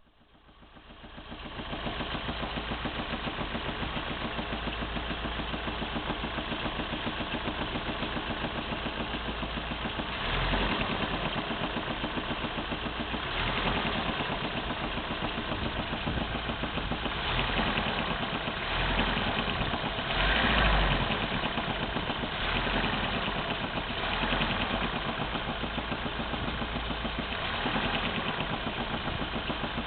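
Opel C20NE 2.0-litre four-cylinder engine running hot and knocking at idle. It fades in over the first two seconds, and from about ten seconds in it is revved briefly several times.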